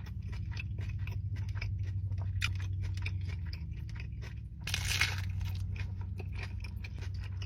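Close-miked crunching and chewing of a lettuce-wrapped burger, the crisp lettuce crackling with each bite, with a louder crunch about five seconds in, over a steady low hum.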